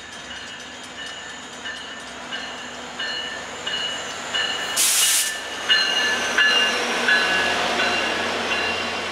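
Passenger train led by two EMD F40PH-2D diesel locomotives approaching and passing, their 16-cylinder engines growing louder until the lead unit goes by about six seconds in. Short high ringing tones repeat about every half second throughout, and a brief hiss sounds about five seconds in.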